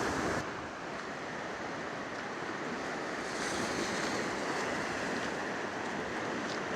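Cox's River running high in flood: a steady rush of fast-flowing water, a little quieter from about half a second in.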